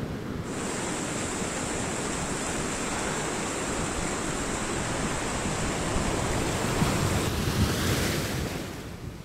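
Sea surf washing steadily onto the shore, with wind on the microphone; it fades out near the end.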